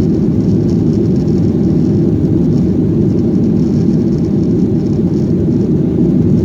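Jet airliner heard from inside the passenger cabin: a loud, steady rumble of the engines and airflow at high power, with no distinct events.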